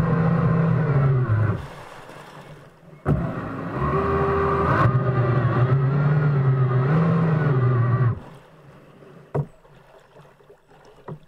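Electric jet drive of a homemade jet kayak whining under power with water rushing past the hull; the throttle is let off about a second and a half in, the drive comes back on with a sharp click about three seconds in, its pitch wavering, and it is cut again about eight seconds in, leaving the water noise of the coasting kayak and another brief click.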